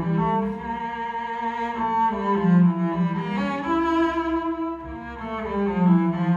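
Solo cello played with a bow: a slow melody of long notes, several sounding together over a lower held line.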